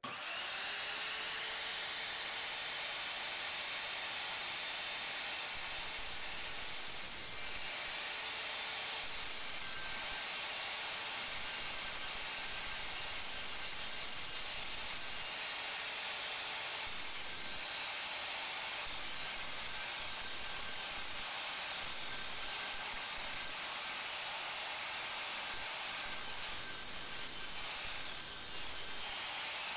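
Evolution R185SMS 185 mm sliding mitre saw spinning up and then cutting slowly and steadily through steel angle iron with its multi-material blade, a continuous hissing grind of blade teeth in metal. The blade is already partly blunted from an earlier cut in hardened steel.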